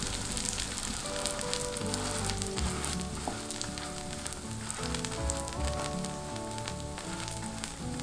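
Pancake batter sizzling and crackling in hot oil on a wide cast-iron cooking pan, with soft background music underneath.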